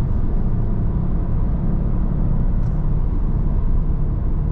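Dodge Dart being driven, a steady low rumble of road and engine noise.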